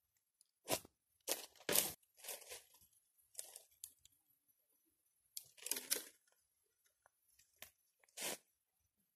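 Dry branches and leaf litter crunching and snapping as dead wood is picked up and gathered by hand: a series of short crunches and snaps with quiet gaps between them.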